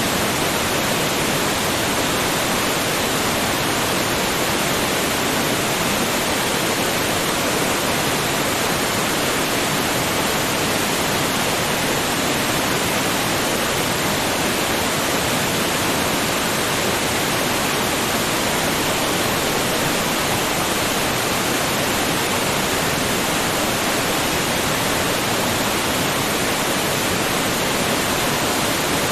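Waterfall: water falling and splashing in a steady, unbroken rush that stays the same throughout.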